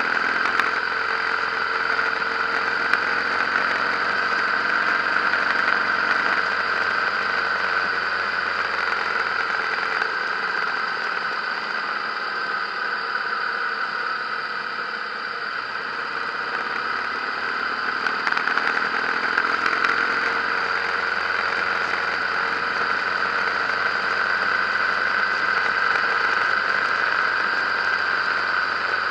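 Harley-Davidson motorcycle riding at road speed: a steady engine drone mixed with heavy wind and road noise on the camera. The noise eases a little about halfway through and builds again.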